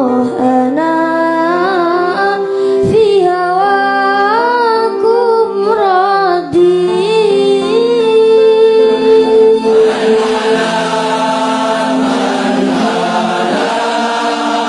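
Vocal music: a single voice sings a slow, ornamented melody with pitch that bends and trills, and about ten seconds in a choir of voices joins in.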